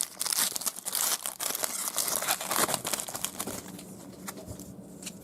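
Foil trading-card pack wrapper being torn open and crinkled, the crackling loudest for the first three seconds and then dying down to soft rustling.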